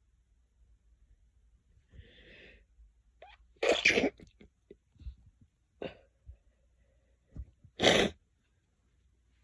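Two loud sneezes about four seconds apart, the first preceded by a breathy build-up, with a few short fainter sounds between.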